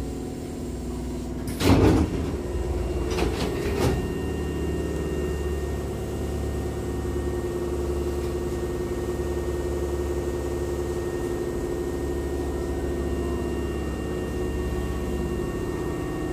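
Hankyu train's double sliding doors opening at a station stop: a loud rush of noise as the door leaves slide apart about two seconds in, a couple of knocks as they reach the stops a second or two later. After that comes the steady hum of the stopped train's equipment.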